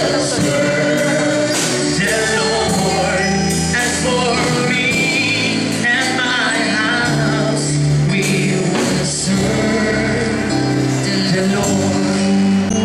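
Congregation singing a gospel worship song, led by a male voice on microphone, over instrumental accompaniment with a steady beat.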